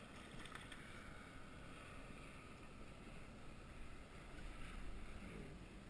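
Faint, steady wash of water and light wind around a small open fishing boat.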